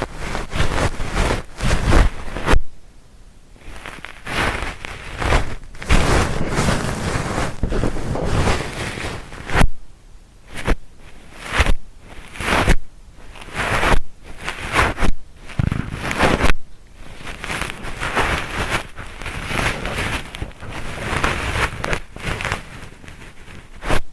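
Ear-cleaning tools scratching and rustling inside a 3D-audio microphone's ear, in irregular strokes with short pauses between them.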